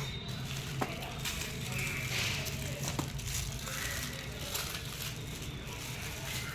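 Firecracker boxes and their plastic wrapping being handled, crinkling and rustling, with a couple of light knocks, over a low steady hum.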